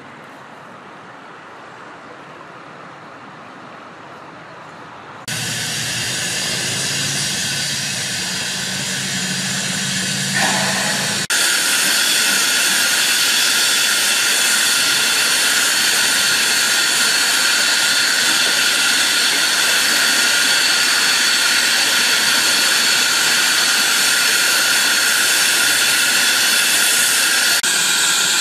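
Steam locomotive letting off steam: a loud, steady hiss that starts suddenly about five seconds in, with a low hum under it at first, and jumps abruptly louder and higher about eleven seconds in.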